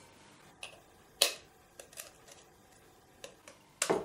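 A raw egg being tapped to crack its shell: a handful of sharp taps, the loudest about a second in and another just before the end.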